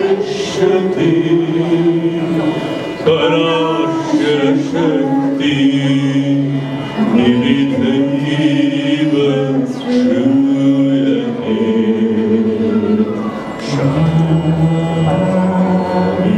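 A man and a woman singing a slow melody together, with long held notes, accompanied by a harmonium.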